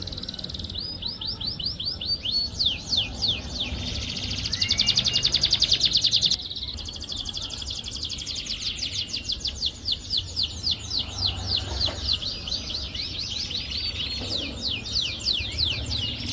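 Domestic canary singing a long, continuous song of rapid down-sweeping notes and fast trills, with its loudest, densest trill from about four to six seconds in. The song serves as a lure ('pancingan') to set off a canary that is reluctant to sing.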